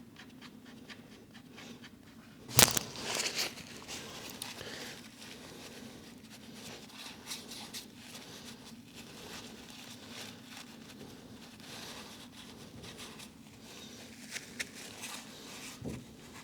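Faint handling noises and light irregular clicks as the motorcycle's oil drain bolt is put back into the sump by hand, with one sharp metallic knock about two and a half seconds in, over a low steady hum.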